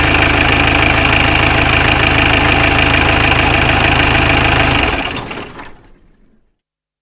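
Bus engine running steadily. About five seconds in it stops, dying away to silence over a second and a half.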